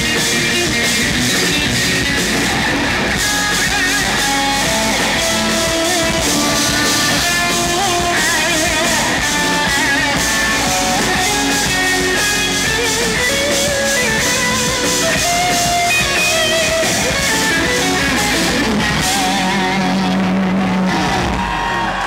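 Live instrumental progressive metal: eight-string electric guitars playing fast, intricate note runs over a drum kit. In the last few seconds the drums drop out and a low held note rings out.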